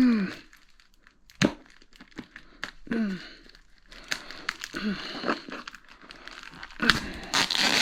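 Packaging being handled and torn open: crinkling and tearing with sharp clicks and a few short falling squeaks, then a louder stretch of rustling and tearing starting about seven seconds in.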